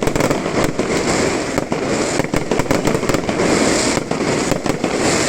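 Fireworks display going off in a dense, continuous barrage of loud bangs and crackles.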